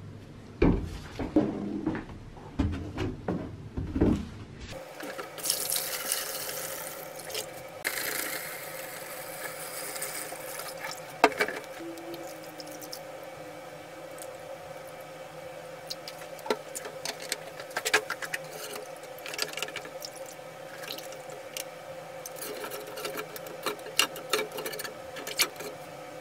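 A few knocks as a plastic bottle is handled. Then, from about five seconds in, hydrochloric acid is poured from the bottle into a plastic tub over a rusted steel helmet, a steady splashing pour with scattered small clicks and crackles.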